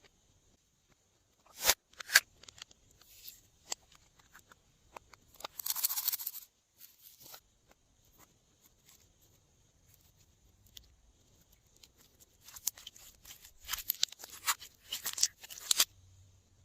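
Glossy slime and plastic piping bags being handled: scattered sharp clicks and crackles, a short rustling burst about six seconds in, and a dense run of crackles over the last few seconds.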